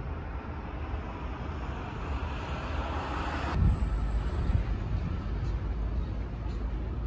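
Outdoor city ambience: a steady low rumble with a hiss over it. The hiss grows louder, then cuts off abruptly about three and a half seconds in, where one recording gives way to another.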